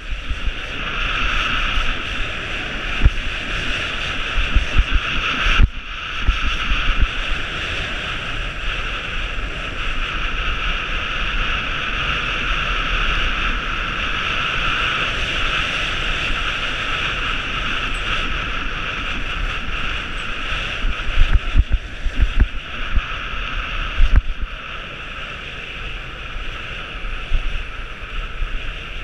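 Wind rushing over an action camera's microphone during a fast ski run, with the skis running over packed snow and low gusts buffeting the microphone now and then.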